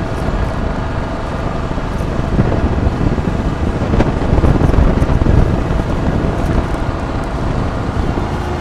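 Engine of a moving vehicle running steadily, with wind rumbling on the microphone.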